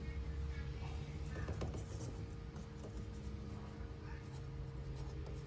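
Light scratching and rubbing as rubber spline is pressed with a hand tool into the channel of a window screen frame at a corner, seating the screen mesh. A steady low hum runs underneath.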